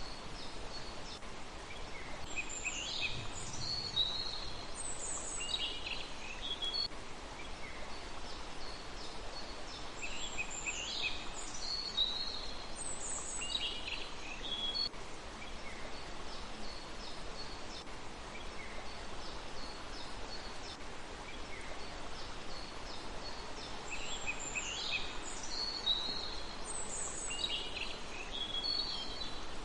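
A small songbird singing three bouts of quick, high chirping notes that sweep downward, over a steady background hiss.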